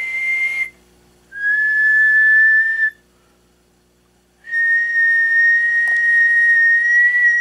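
A man whistling single held notes into a CB radio microphone to drive the amplifier's modulation on test. There are three steady whistles: the first ends under a second in, the second lasts about a second and a half, and a long one starts about four and a half seconds in and rises slightly in pitch at its end. A faint steady hum sits underneath.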